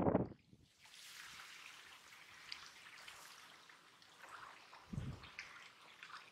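Faint wet trickling and dripping with many small crackles, as a wet catch of small fish and shrimp is picked through by hand on a plastic sheet. A soft low thump comes about five seconds in.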